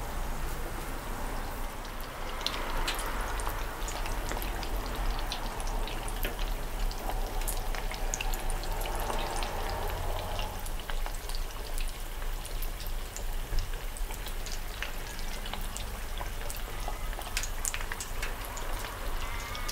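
Panko-breaded pork cutlet deep-frying in the hot oil of an electric deep fryer: a steady sizzle full of small crackling pops.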